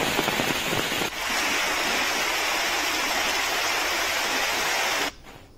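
Heavy rain pouring down in a steady hiss, with a brief break about a second in. The hiss cuts off sharply near the end.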